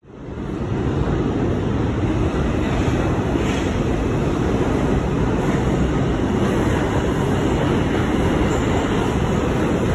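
Steady, loud low rumble and hiss of ambient noise in an underground station concourse, fading in at the start and holding even, with no voices or distinct events.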